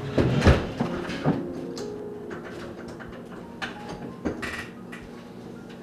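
A door that no longer sits right in its frame since it was kicked in, being forced shut: several heavy thuds and knocks in the first second and a half, then the knob and latch rattling and clicking about four seconds in.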